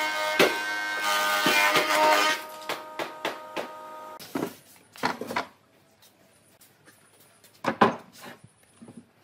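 Thickness planer cutting a board with a steady whine for about two seconds, then running on quieter once the board has passed through and dying away around four seconds in. After that come several wooden knocks as the board is handled, the loudest near the end.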